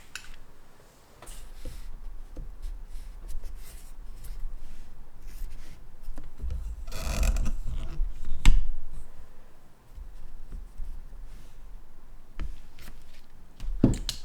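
Paintbrush rubbing and scratching on watercolour paper with small handling sounds. There is a louder rustle about seven seconds in and a single knock a moment later, over low bumps.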